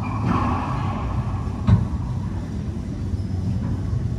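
A single sharp smack of a racquetball being struck, a little before halfway, over a steady low rumble.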